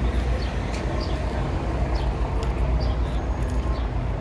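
City street noise: a steady low engine rumble from idling and passing vehicles, with a few short high chirps scattered over it.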